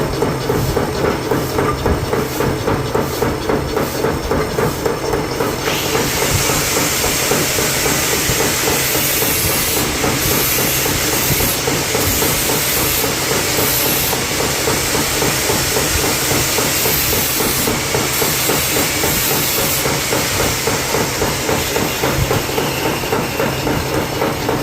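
A heavy milling machine running a cut, with a steady, rhythmic pulsing from the cutter. A loud hiss joins about six seconds in and carries on.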